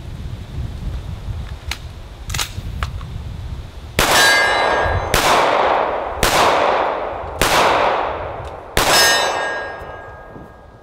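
Five shots from a Sig P220 .45 ACP pistol, a little over a second apart, each with a long fading echo. The first and last shots carry a metallic ring as the rounds strike steel targets.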